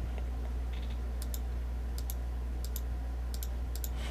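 A run of light clicks from computer controls, in close pairs about every half second to a second, over a steady low hum.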